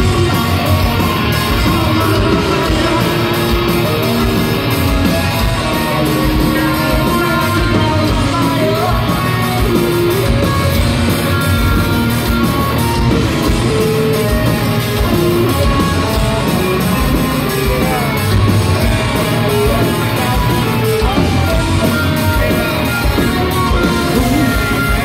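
A live rock band playing loud: distorted electric guitars, bass guitar and a drum kit, with a singer's voice over them.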